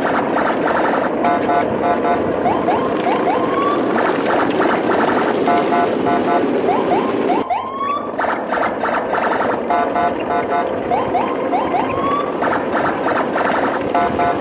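A looped electronic sound-effect track: a few short rising whoops, then bursts of beeping tones, repeating about every four seconds over a steady noisy rumble. There is a brief drop about seven and a half seconds in.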